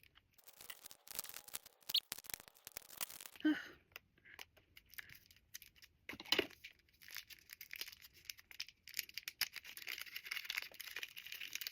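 Paper or plastic wrapping on a small stationery item being handled and torn open: a run of light crinkles, rustles and small ticks.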